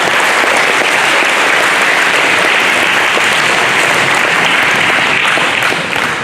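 Audience applauding, a steady dense clapping that starts to die down near the end.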